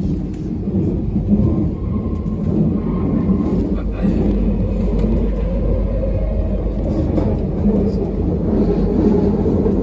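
Steady low rumble of a moving commuter train heard from inside a crowded carriage, with passengers' voices mixed in.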